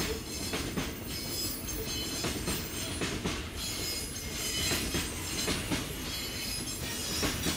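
Container wagons of a freight train rolling past: a steady rumble broken by an irregular run of wheel clacks over the rail joints, with a faint thin wheel squeal above it.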